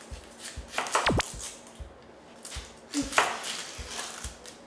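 Kitchen knife cutting an onion on a cutting board: crisp slicing strokes through the onion with soft knocks of the blade on the board. A short falling swoosh comes about a second in.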